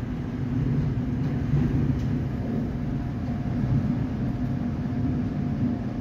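Storm wind rushing and gusting: a steady low roar that swells and eases, with a faint thin whistle in the second half.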